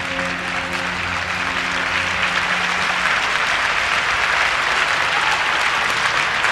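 Audience applauding, swelling louder, while the last notes of the program music fade out about halfway through.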